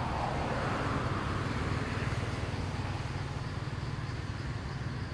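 A steady low engine hum, as of a motor vehicle running, with a rushing hiss that swells and fades in the first two seconds.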